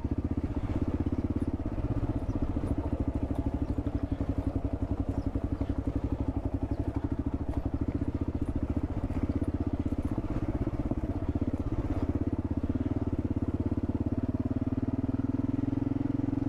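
Single-cylinder 650 cc dual-sport motorcycle engine running steadily, its firing pulses coming as a fast, even beat with no clear change in engine speed.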